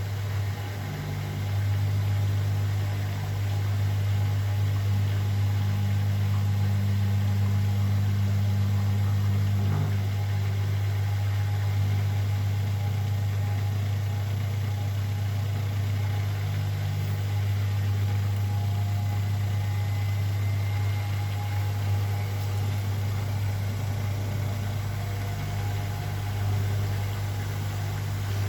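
Zanker EFX 4875 front-loading washing machine running its final spin cycle, a steady low mechanical hum with faint tones above it.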